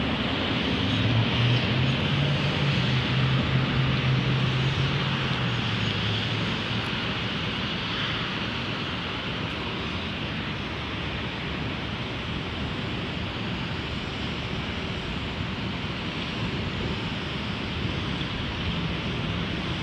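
Steady roar of distant city traffic. A low engine hum comes in about a second in and fades out around six seconds.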